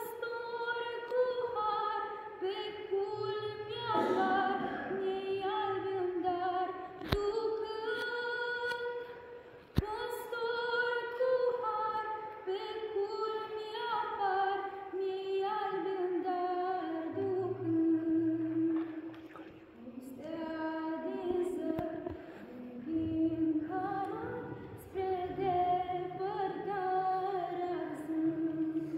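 A group of women and girls singing a Romanian Christmas carol (colindă) unaccompanied, in sustained phrases with short breaks about ten and twenty seconds in.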